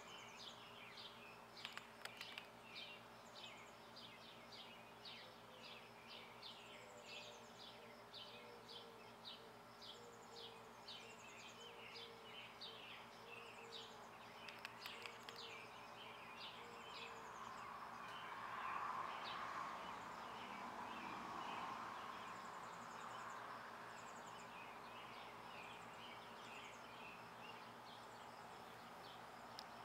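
Faint garden ambience: a steady run of short, high chirps, about three a second, that thins out after the middle, with a soft hum swelling and fading about two-thirds of the way through.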